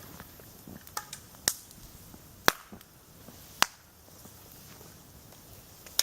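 Dry wood cracking: about five sharp, irregularly spaced snaps, the loudest two about two and a half and three and a half seconds in.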